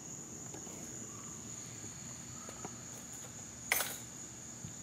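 Crickets trilling steadily in one high, even tone. About three-quarters of the way through there is a brief rustle, as of handling.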